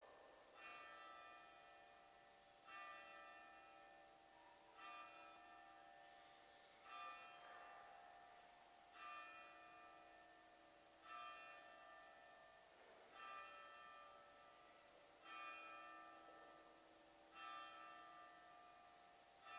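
A single church bell tolling slowly and faintly, one stroke about every two seconds, each stroke ringing on and dying away into the next.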